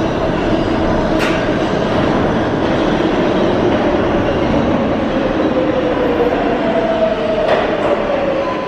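R188 subway train on the 7 line entering an underground station: a steady, loud rumble of wheels on rail with a wavering tone that slides slightly lower in pitch, and a couple of sharp clicks, one about a second in and one near the end.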